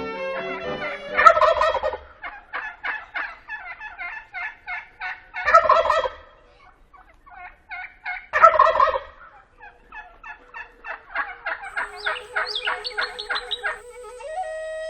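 Wild turkey gobbling three times, loud rattling gobbles with rapid runs of short notes between them. Sustained musical tones come in near the end.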